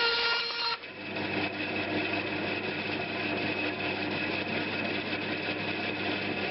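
A power tool's motor running steadily. About a second in, its pitch drops suddenly and it carries on at the lower pitch.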